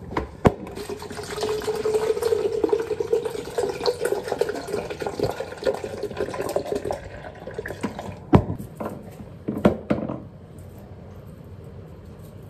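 Pineapple juice poured from a carton into a plastic blender cup, a steady gurgling stream lasting about six seconds. A sharp knock comes just before the pour and two more come a couple of seconds after it ends.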